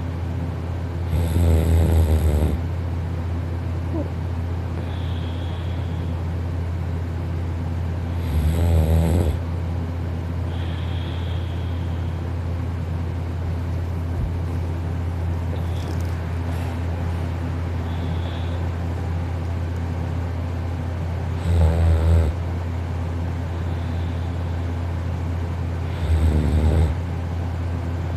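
A person snoring in their sleep: four snores a few seconds apart at uneven intervals, each with a wavering, fluttering pitch, over a steady low hum.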